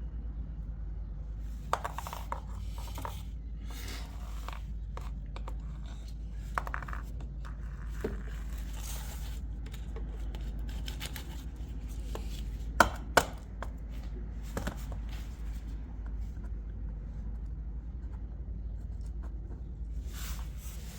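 Scattered metallic clicks, scrapes and rattles of hand tools at work on the oil drain plug, with two sharper clicks close together about thirteen seconds in. A steady low hum runs beneath.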